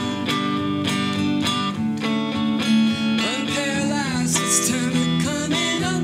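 A song played live: hollow-body electric guitar strumming chords, with singing.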